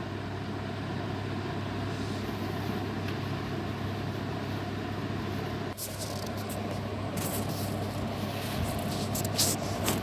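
Steady background hum and hiss, with plastic packaging rustling and crinkling in short bursts over the second half.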